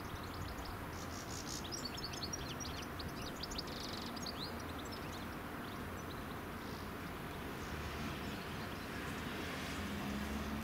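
Small birds chirping, a quick flurry of short high calls in the first half, over steady low background noise.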